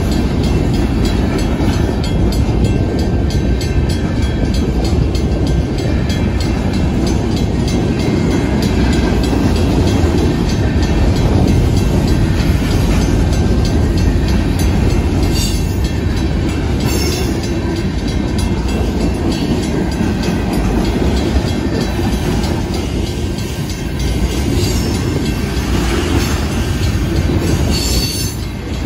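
Freight cars of a manifest train rolling past close by: a steady heavy rumble of steel wheels on the rails with fast clickety-clack over the rail joints. A few times, near the middle and again near the end, brief high-pitched wheel squeals rise over it.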